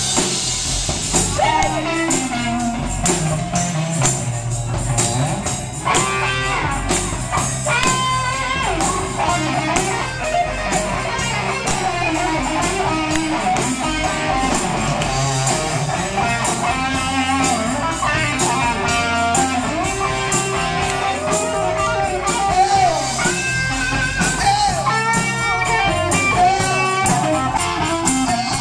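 Live rock band playing: electric guitars, bass guitar and a drum kit keeping a steady beat.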